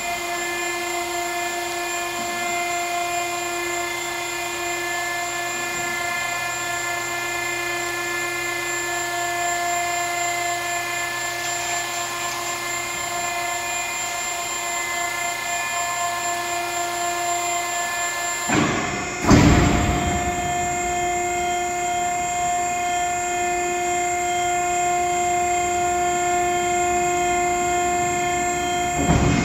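Ground-loading pallet inverter's drive running with a steady whine as its frame rotates, broken by a sudden loud clunk about two-thirds of the way through, after which the whine carries on.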